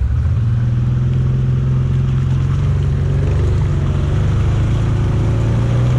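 Quad bike (ATV) engine running steadily at high revs under load while towing another quad bike.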